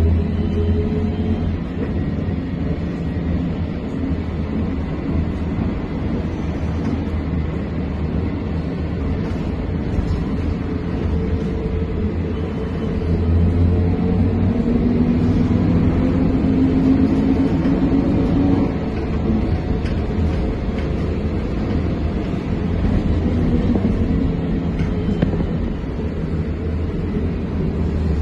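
Trolza-5275.06 Optima trolleybus heard from inside while driving: a steady low rumble of the running gear and body, with the electric drive's whine rising and falling as the trolleybus speeds up and slows down.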